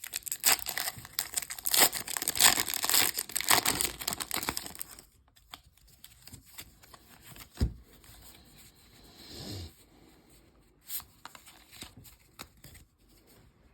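A Pokémon trading card booster pack's foil wrapper crinkling and tearing open for about five seconds. After that come quieter handling noises with a few soft clicks and one knock.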